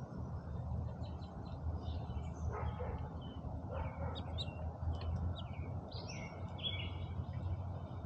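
Small songbirds at a tube seed feeder chirping, a scatter of short high chirps that gets busier in the second half, over a low steady rumble.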